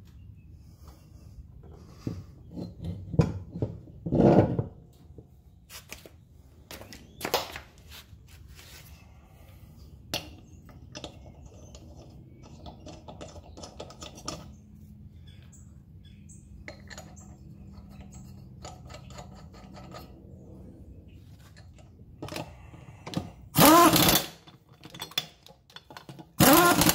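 Clunks and knocks of a golf cart wheel being handled and fitted onto its hub, then two short bursts of an air impact wrench spinning on the wheel's nuts near the end.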